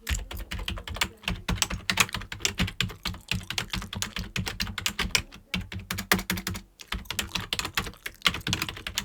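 Fast, irregular typing on a computer keyboard, many key clicks a second with only brief pauses.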